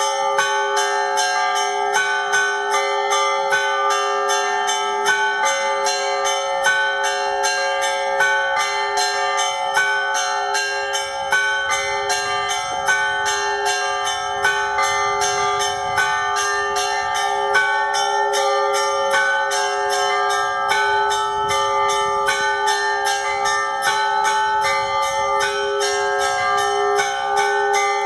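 Russian Orthodox church bells being rung. The smaller bells are struck in a quick, even rhythm over the steady hum of the larger bells ringing on.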